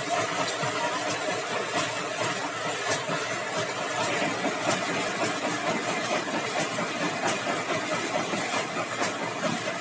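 Sawmill machinery running with a steady mechanical drone and faint scattered ticks.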